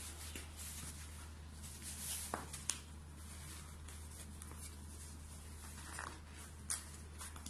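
Faint rustling and a few light knocks as a folded, packaged cotton bedding set is handled and set down on a table, over a low steady hum.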